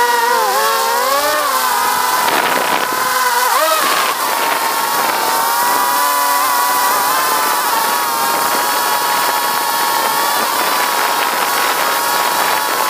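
Quadcopter drone's propellers whining close to the microphone. The pitch rises and falls with throttle changes for the first four seconds, then holds steady as the drone hovers.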